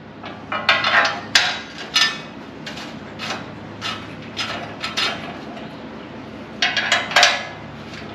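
Irregular metallic clanks and clinks of steel carrier parts knocking together as the tire stop is set on the tire pan and bolted down, some strikes ringing briefly; the loudest come about a second in and again around seven seconds.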